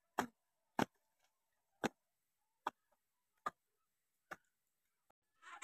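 Footsteps: about six short, sharp steps at an uneven pace, with silence between them.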